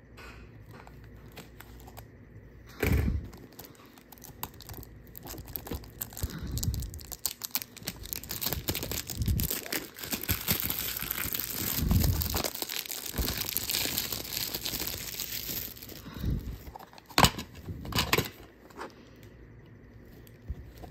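Plastic shrink wrap being torn and crinkled off a DVD case, with occasional knocks from handling the case. Several sharp clicks come near the end as the plastic case is opened.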